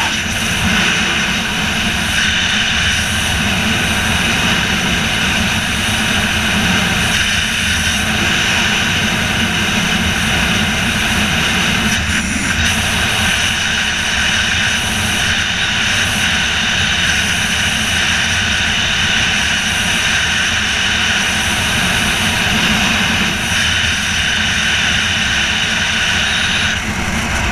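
Loud, steady wind noise from the airflow rushing over a body-mounted camera during a wingsuit flight at full speed.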